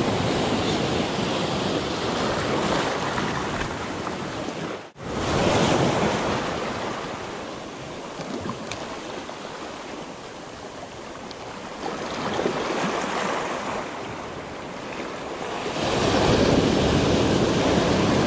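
Sea surf breaking on a rocky shore and washing back over the boulders, swelling and fading, with a wave breaking loudly near the end. Wind buffets the microphone, and the sound drops out for an instant about five seconds in.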